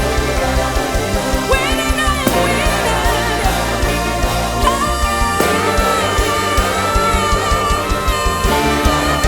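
Christian worship music: a band playing with a steady beat, with a singing voice over it. A long held note begins about halfway through and lasts to the end.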